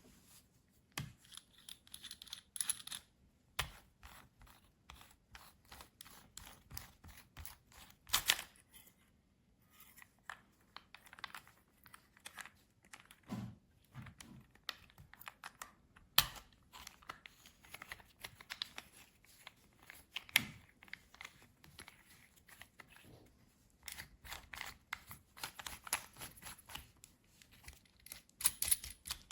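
Packaging being opened and handled: rustling, tearing and crinkling, broken by frequent sharp clicks and knocks of hard parts being set down.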